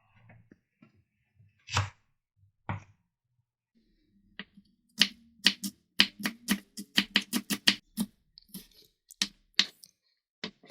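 Kitchen knife chopping green onion whites on a cutting board. A few separate cuts come first, then from about halfway through a fast, even run of chops, about five a second.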